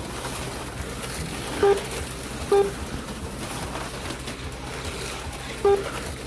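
HO slot cars running laps with a steady electric motor whine and hum, broken by three short electronic beeps from the lap-counting timer as cars cross the line, about two seconds in, a second later and near the end.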